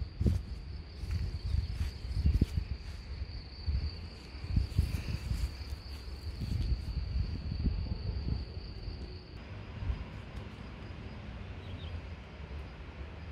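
Insects chirring in one steady high note, over irregular low rumbles of wind on the microphone; the chirring cuts off suddenly about nine seconds in.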